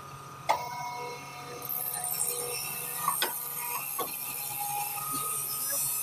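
Hydraulic hose crimping machine running: a steady pump hum with a high hiss that comes in about a second and a half in and holds. A sharp click about half a second in, with a few lighter clicks later, as the control panel is worked.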